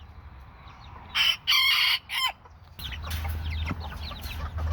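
Chickens calling: a couple of loud, harsh squawks about a second in, then a busy run of short, quick clucks and chirps from several birds.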